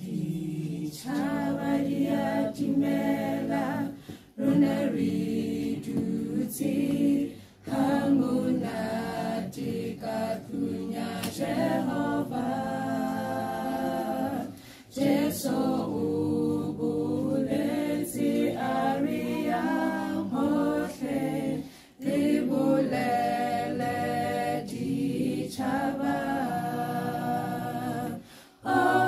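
A small mixed group of men's and women's voices singing a cappella, a song in Sesotho, with no instruments. The singing comes in long phrases with brief pauses between them.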